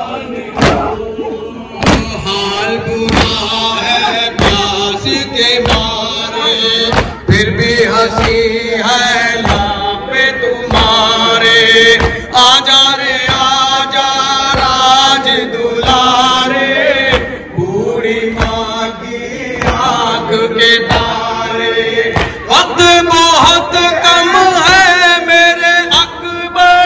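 A noha, an Urdu lament, chanted by voices, with the thumps of matam, hands striking chests, falling in a steady rhythm under it.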